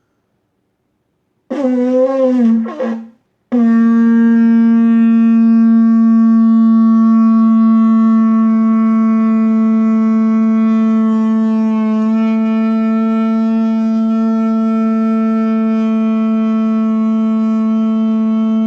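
Shofar blown: a short, wavering blast about a second and a half in, then after a brief break one long, steady blast held on without a break.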